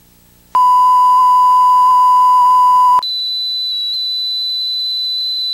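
Steady electronic beep tone, starting abruptly about half a second in, then switching suddenly to a higher-pitched, quieter tone about three seconds in and holding it.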